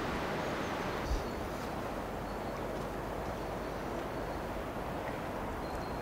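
Steady outdoor background noise of wind and a distant hum, with one dull thump about a second in and a few faint high chirps.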